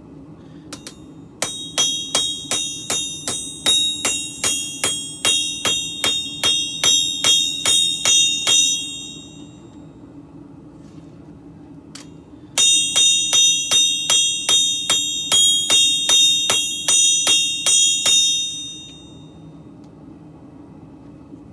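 Two runs of steady hand-hammer blows on steel on an anvil, about three ringing strikes a second, each run lasting some six to seven seconds and ending with a short ring-out. A steady low hum runs underneath.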